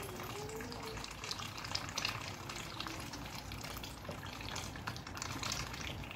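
Water running and splashing steadily, with many small splashes throughout.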